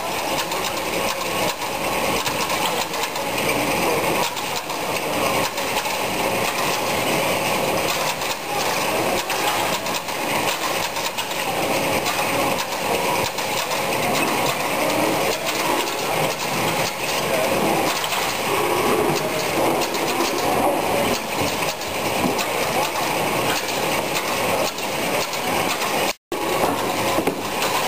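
Aweta-Autoline Pentacup tomato sorting line running: steady mechanical clatter of its conveyors and singulator, with tomatoes rolling and knocking. The sound breaks off for a moment near the end.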